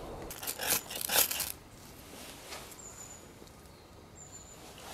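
Ferrocerium rod struck with the spine of a knife: a quick run of harsh scrapes in the first second and a half, throwing sparks that set the tinder alight.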